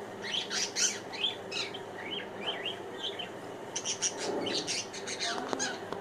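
Budgerigar chattering: quick runs of short chirps and warbles in spells, busiest in the second half.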